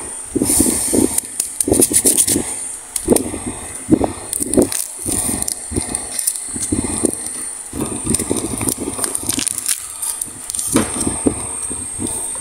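Shiny plastic wrapper of a lollipop crinkling and crackling as it is torn open and peeled off by hand, in irregular bursts of crackles and rustles.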